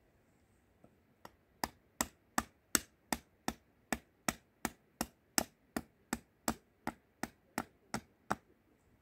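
Small hammer striking a wooden spoon blank on a wooden block: about twenty sharp taps in a steady rhythm, roughly three a second, starting about a second in and stopping near the end.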